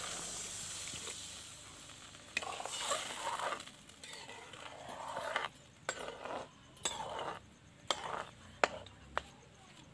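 Frying masala in a kadhai sizzling as water is poured in, the sizzle dying away over the first two seconds. Then a metal spatula stirs and scrapes the pan, with several sharp clinks against its side.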